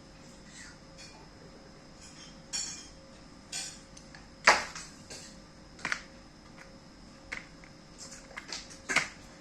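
Irregular clinks and knocks of a dish or utensil being handled, about ten sharp strikes spread over several seconds, the loudest about four and a half seconds in.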